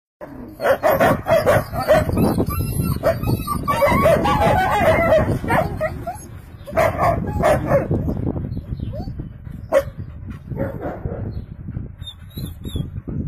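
German shepherd puppies barking and yipping, many quick overlapping barks through the first half, thinning out to scattered barks toward the end.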